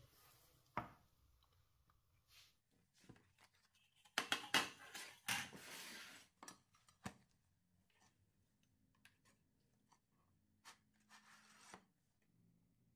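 Kitchen handling sounds: a sharp knock about a second in, then a couple of seconds of scraping, cutting noise in the middle, followed by a few light clicks.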